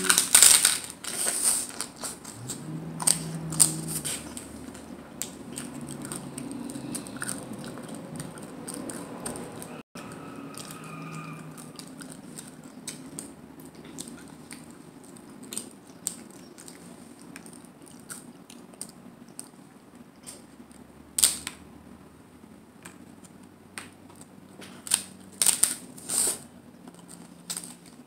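Crunching of hard corn taco shells being bitten and chewed. The loudest crunches come at the start and around three to four seconds in, with a few more near the end; quieter chewing clicks fill the stretch between.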